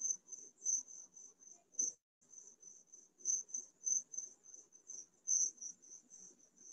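A cricket chirping, in high pulses at about three a second, picked up on an open video-call microphone; the audio cuts out briefly about two seconds in.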